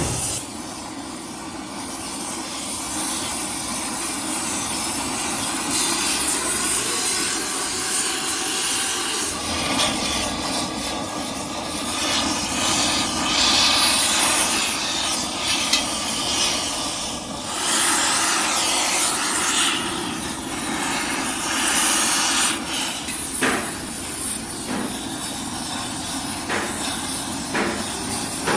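Steady hissing noise from metalwork on a cracked aluminium alloy wheel, with a few sharp knocks near the end.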